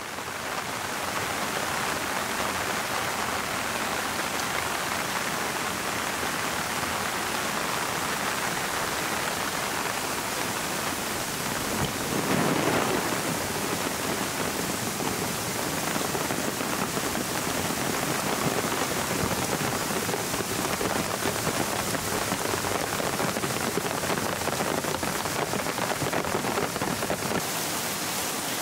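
Heavy downpour: rain falling steadily on leaves and a wet path, with a brief louder swell about halfway through.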